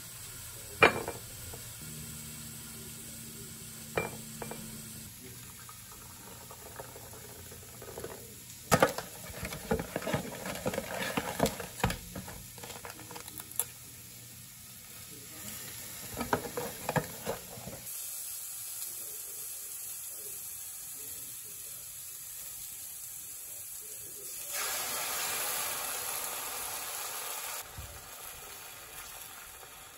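Kitchen cooking sounds: a couple of sharp clicks, then two spells of utensils clattering against a pan or dishes, followed by a steady sizzling hiss that grows louder for a few seconds near the end.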